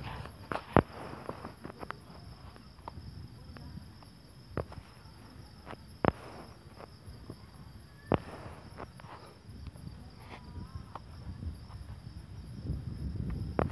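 Crickets chirping steadily in a high, even band, with a few sharp clicks or knocks scattered through, the loudest about a second in and again around six and eight seconds in.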